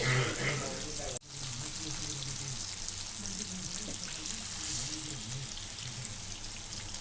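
Fish pieces shallow-frying in oil in a pan on medium flame, a steady sizzle with fine crackling. The sound cuts out for an instant about a second in.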